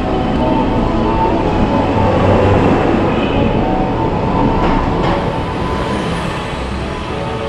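Arcade din: overlapping electronic tunes and jingles from claw machines over a steady, dense background noise.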